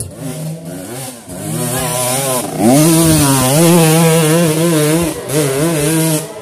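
Trail dirt bike's engine revving hard while climbing a steep muddy slope, its pitch wavering up and down. The revs jump about two and a half seconds in, hold high, then fall away just before the end.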